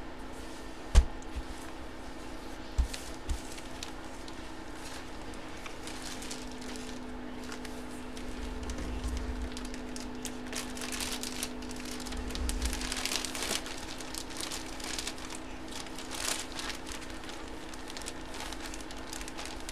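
Plastic wrapping on a jersey crinkling and rustling as it is handled. There is a sharp knock on the table about a second in, two lighter knocks a couple of seconds later, and a steady low hum underneath.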